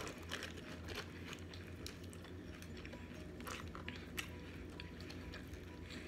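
Chewing a mouthful of cheesy beef nachos, with scattered soft crunches of tortilla and Doritos chips, over a low steady hum.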